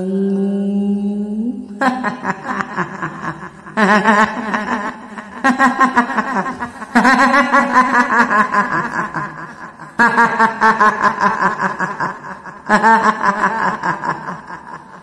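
A woman's ghostly kuntilanak laugh, a fluttering "hihihi" cackle, in six long bouts that each start loud and trail off.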